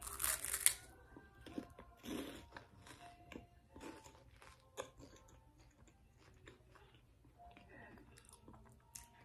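A crunchy cheese puff being bitten and chewed: a loud crunch at the bite in the first second, then quieter, irregular chewing crunches that thin out.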